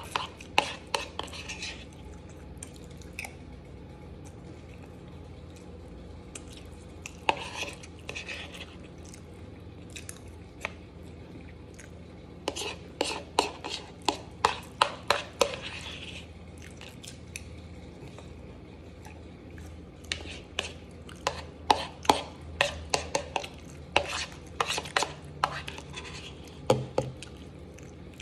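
A metal spoon clinking and scraping in a bowl of pasta as it is stirred and scooped, in several bursts of quick clicks with pauses between.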